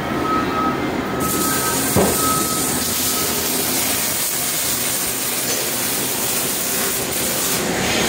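An electric welding arc hissing and crackling steadily. It starts suddenly about a second in and cuts off shortly before the end, over a steady shop hum.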